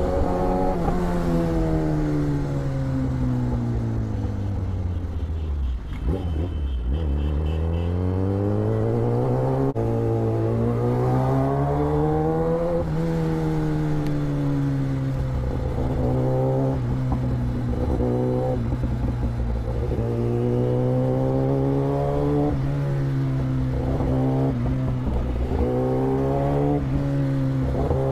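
Kawasaki ZX-10R's inline-four engine heard from the rider's seat while riding. The revs fall away over the first six seconds or so and climb again until about halfway. Then they hold fairly steady with many short rises and falls as the throttle is worked.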